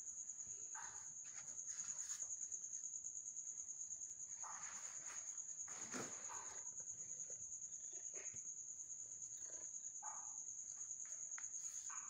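Steady high-pitched insect trill, like a cricket, with a rapid pulsing. A few brief, fainter sounds break in, the fullest about five to six seconds in.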